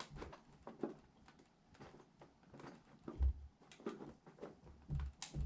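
Irregular small clicks, taps and rustles of computer parts being handled and fitted during a PC build, with a couple of dull low thumps, one about three seconds in and one near the end.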